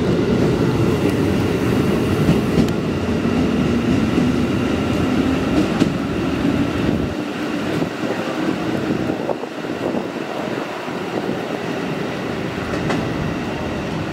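Electric commuter train running past close by, a dense rumble of wheels and traction motors. About seven seconds in it gives way to a lighter, quieter sound of a second commuter train drawing slowly along the platform.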